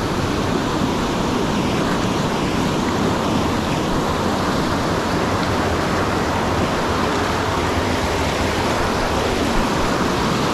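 A fast river rushing over rocks in white-water rapids: a steady, unbroken rush of water.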